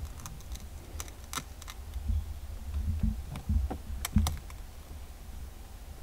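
Light, irregular clicks and scrapes of a metal pick tool working behind the glued plastic trim piece on a BMW G30 gear selector, breaking the adhesive to pry the piece loose.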